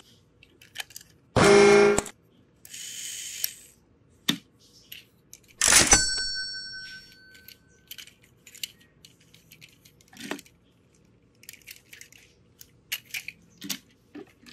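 Plastic toy train engine and coach being handled and set down on a wooden table: scattered small clicks and taps, with a short pitched tone about one and a half seconds in and a sharp click that rings briefly about six seconds in.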